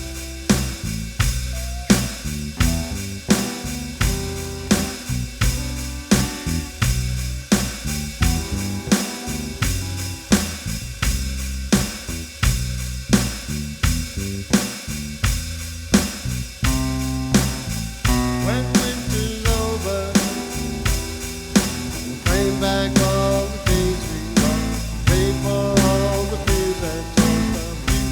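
A band playing an instrumental passage: a drum kit keeps a steady beat under bass guitar and guitars.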